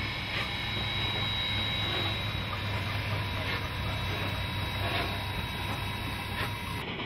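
Steam locomotive No. 18, an Alco 2-8-0 Consolidation, running past with its train: a steady low rumble with faint soft beats about once a second.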